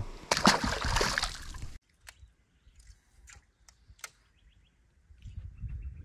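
Water splashing and sloshing where a just-released bream has been dropped back in, for about a second and a half, then cutting off suddenly. A few faint clicks and taps follow.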